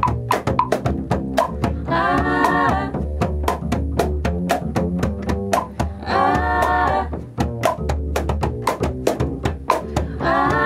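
Acoustic folk instrumental break: cajon, shakers and clave in a quick, steady rhythm over a plucked upright bass line. Short wordless vocal harmonies come in about every four seconds.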